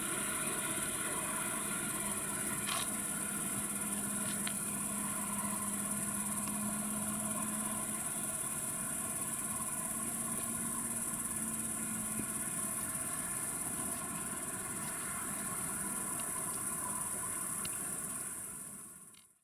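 Crickets chirring steadily in a high-pitched band, over the faint low hum of a distant electric suburban train that dies away about two-thirds of the way through. Everything fades out just before the end.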